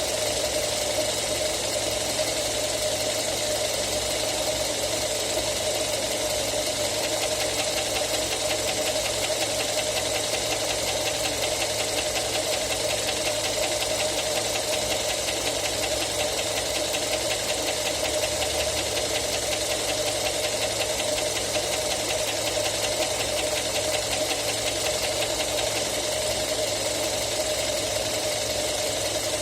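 Mazda 6 GH engine running steadily, with a rapid knocking from the variable intake system (VIS) flaps in the intake manifold.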